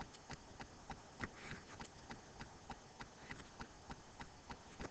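Faint quick ticking of a pen stylus on a writing tablet as digits are written, about four small clicks a second over quiet room tone.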